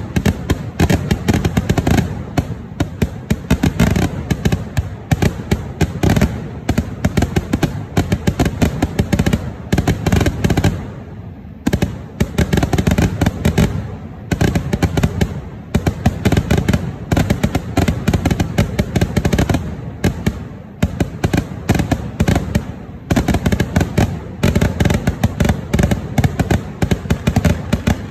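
Temple-festival fireworks (vedikettu) going off in a dense barrage of loud bangs, several a second, with a brief lull about eleven seconds in.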